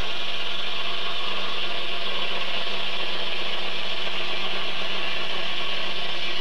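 Circular saw bench, belt-driven by a steam traction engine, cutting steadily through a log. A continuous high whine of the blade in the wood, with a steady low hum underneath.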